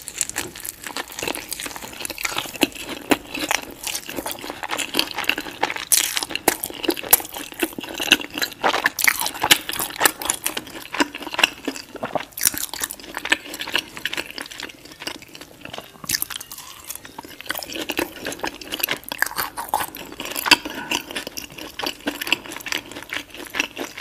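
Close-miked crunching and chewing of crispy breaded fried chicken coated in sauce, a dense, irregular crackle of bites and chews without pause.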